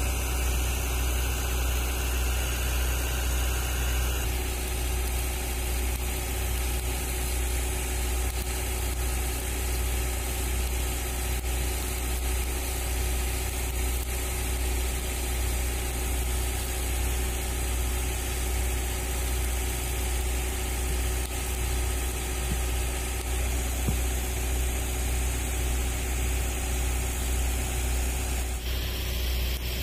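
An engine running steadily at idle, with a deep, even hum.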